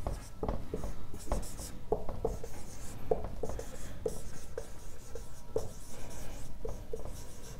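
Marker pen writing on a whiteboard: a run of short squeaking and scratching strokes as letters are written.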